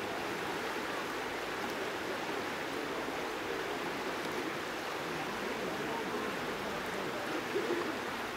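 River water flowing and rushing steadily over a rippled current.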